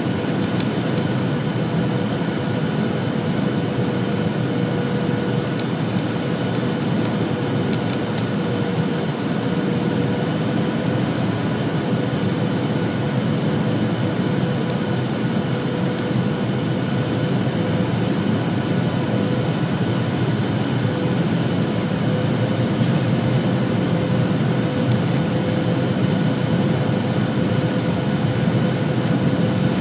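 Steady airliner cabin noise during the descent to landing: an even rushing roar with a steady engine hum through it, growing slightly louder near the end.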